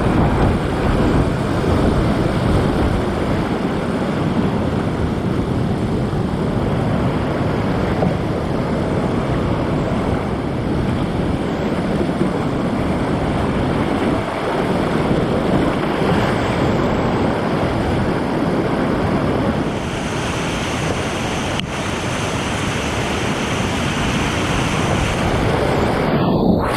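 Whitewater rapids rushing loudly and steadily.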